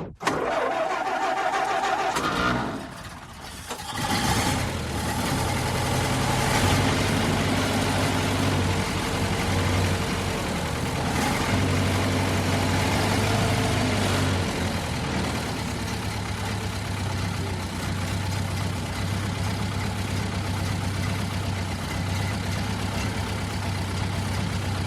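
Antique car engine being cranked by its starter; after a short gap it catches about four seconds in and keeps running. It idles, with its speed rising and falling briefly, then settles into a steady idle.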